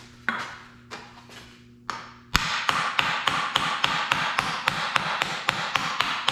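Hammer striking a hand-formed sheet-steel patch panel for a fender wheel lip: a few separate taps, then from about two seconds in a steady run of quick blows, about five or six a second.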